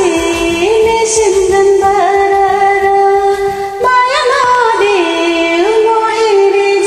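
Karaoke duet singing over a backing track: a melody of long held notes that step up and down, with a female voice prominent.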